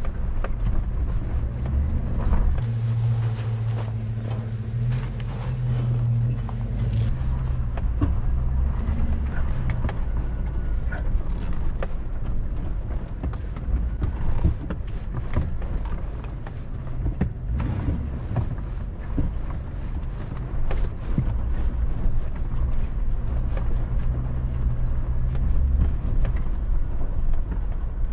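A 4x4's engine running at low speed over a rocky dirt trail, with tyres crunching on gravel and many small clicks and knocks from stones under the wheels.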